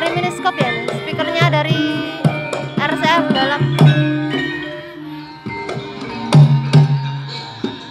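Javanese gamelan (karawitan) music played over a large outdoor PA sound system: sharp hand-drum strokes with a wavering melody line on top and low held notes beneath.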